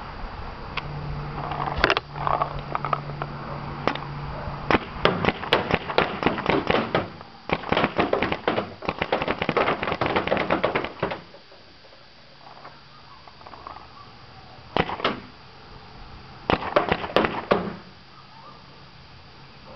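Smart Parts Ion electro-pneumatic paintball marker firing rapid strings of shots, several a second, first in two long strings, then a pair and a short burst near the end.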